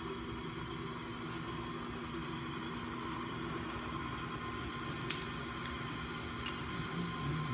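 Stand mixer motor running steadily with its beater in a steel bowl of batter. A single sharp clink comes about five seconds in.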